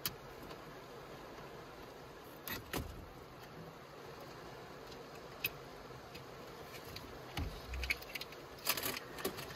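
Plastic cable plugs and wiring connectors clicking and rattling as they are handled and pushed into the back of an Android car stereo head unit. The clicks are scattered, a couple early and a busy cluster in the last few seconds, with a soft low knock among them.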